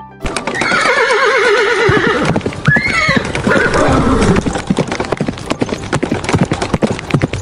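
Horse whinnying: one long quavering call, then a second shorter call about two and a half seconds in, over a steady clip-clop of hooves.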